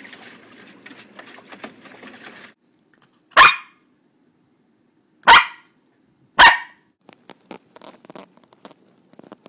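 Small Schipperke dog giving three sharp single barks, the second and third about a second apart. They follow a couple of seconds of splashing and pawing in shallow water, and are followed by faint clicking.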